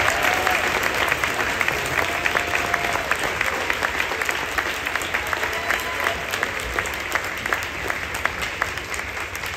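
Audience applauding, with a few voices cheering; the clapping thins out toward the end.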